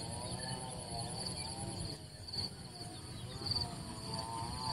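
Insects chirring in a steady, pulsing high trill over a low rumble, with a faint wavering tone underneath.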